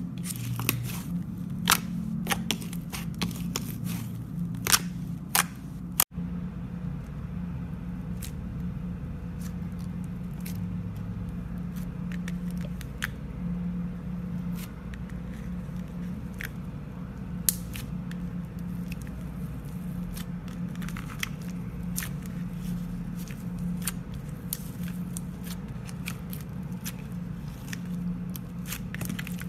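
Slime being worked by hand, giving sharp clicks and crackles as small air pockets pop, dense for the first few seconds and sparser after a brief dropout about six seconds in, over a steady low hum.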